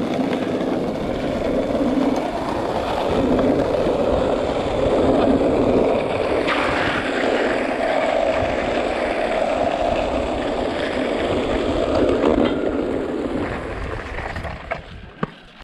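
Skateboard wheels rolling on an asphalt road, a steady rolling rumble with a couple of sharp clacks, fading out near the end.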